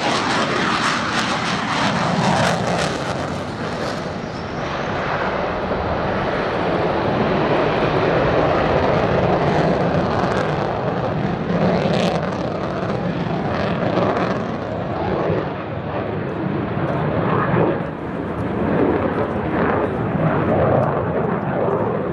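JASDF F-15J fighter jet in flight: its twin turbofan engines give a loud, continuous jet noise that swells and eases slightly as it passes.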